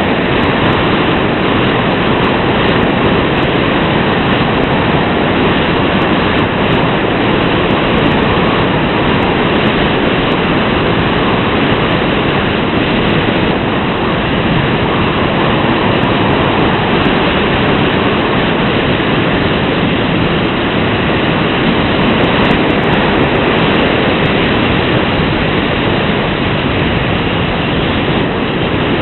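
Steady, loud rushing noise of wind or airflow buffeting the microphone.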